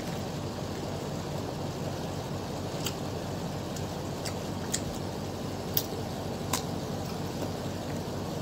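Steady low background rumble with a few short, sharp clicks and smacks from eating: ripe mango being dipped in shrimp paste and chewed.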